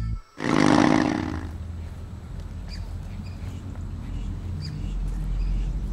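A sudden loud rushing sound effect about half a second in that fades away over about a second, leaving quiet forest ambience with a low rumble and a few faint bird chirps.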